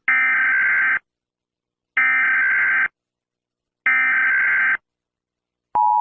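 Emergency Alert System SAME header: three short bursts of warbling data tones, each just under a second long and about two seconds apart. Near the end the steady two-tone EAS attention signal starts. Together they announce that an emergency alert message follows.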